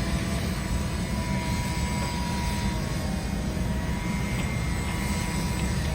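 A steady low rumble with a faint thin tone above it, unchanging in level.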